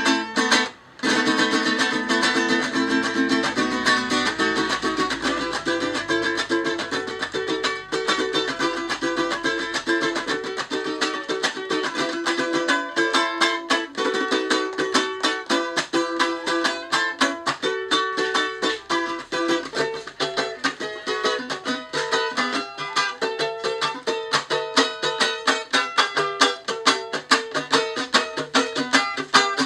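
Venezuelan cuatro strummed in a fast, steady rhythm, chord after chord.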